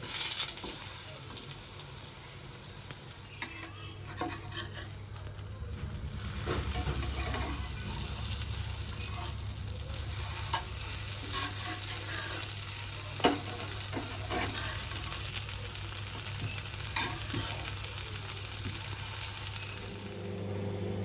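Food sizzling in hot oil in a frying pan, with scattered clicks and scrapes of a utensil turning it. The sizzle grows louder about six seconds in and stops shortly before the end.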